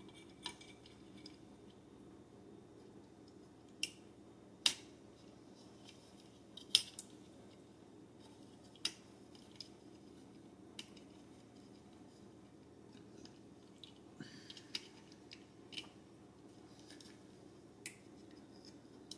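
Hard clear plastic clicking and tapping as a mini action figure is fitted into a Funko Wonder Woman Invisible Jet toy: about a dozen sharp, irregular clicks, the loudest about 5 and 7 seconds in, over a faint steady room hum.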